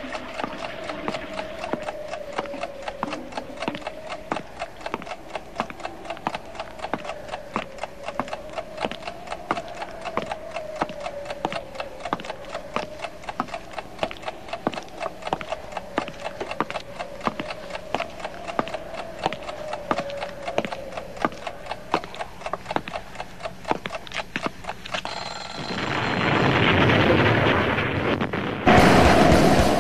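Clock ticking sound effect, a rapid, even tick with a faint wavering tone beneath it. Near the end a rushing noise swells up, then a sudden loud thud hits.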